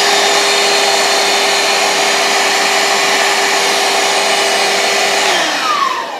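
Small handheld vacuum cleaner running steadily with a whining motor, sucking up leftover coffee grounds. About five and a half seconds in it is switched off and the whine falls away as the motor spins down.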